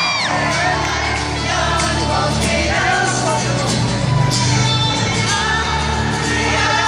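Live acoustic rock song performed by a band with a lead singer, heard from the audience through a phone's microphone, with crowd voices mixed in.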